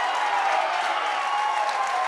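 Crowd of spectators clapping and cheering, with many voices calling out over the applause.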